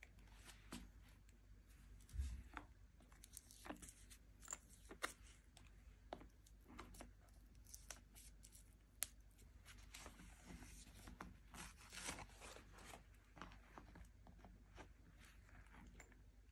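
Faint handling sounds of a saffiano leather crossbody bag being turned over in the hands: scattered light rustles, taps and small clicks. There is a soft bump about two seconds in.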